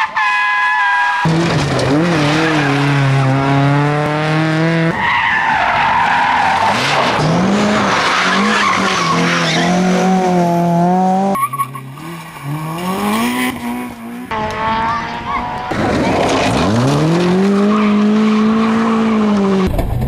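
Rally cars at speed in a series of short cuts: engines revving up and down through the gears, with tyres squealing as a car slides.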